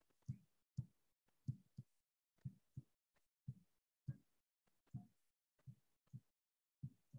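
Faint, soft taps of a stylus on a tablet or touchscreen as handwriting is written, about a dozen irregular taps, roughly two a second.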